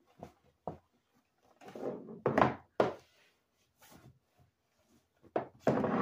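Clear plastic storage drawer being wiped down and handled on a wooden table: a few light taps, then louder scuffs and knocks of the plastic about two seconds in, and again near the end as the drawer is lifted.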